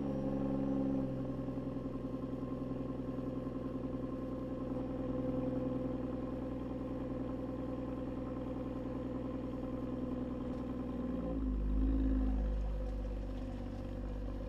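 Ford Fusion Sport's 3.5-litre Cyclone V6 idling through the stock exhaust with only the resonator deleted, just after start-up, the idle settling about a second in. A little after halfway, a deeper rumble swells briefly and the engine note dips and shifts.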